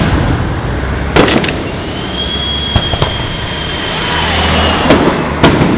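Aerial fireworks shells bursting: sharp bangs a little over a second in and twice near the end, over a steady low rumble. A high whistle holds for about three seconds between the bangs.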